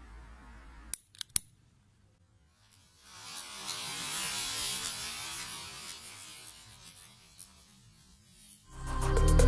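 A lighter clicks a few times, then the yellow powder from a cake fountain catches and burns with a hiss that swells, holds for a few seconds and fades away.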